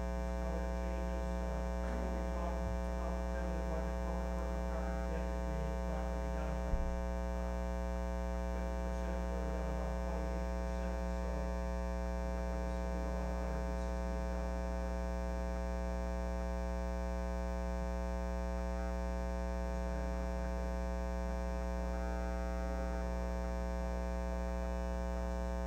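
Steady electrical mains hum with many overtones in the sound system, with faint, indistinct speech underneath. A single short click about a quarter of the way in.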